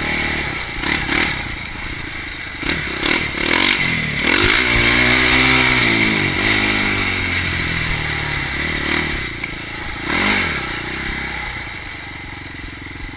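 2004 Polaris Predator 500 quad's single-cylinder four-stroke engine being ridden hard, its pitch climbing and falling several times as the throttle is worked. It eases to a steadier, lower run near the end.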